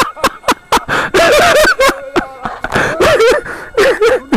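Several people laughing in repeated short bursts, with sharp clicks in between.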